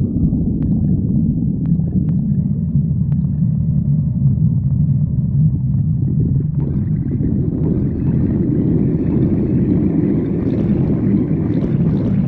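Human stomach growling: a continuous low rumbling gurgle, with a few faint clicks early on and a higher, hissier gurgling building from about halfway.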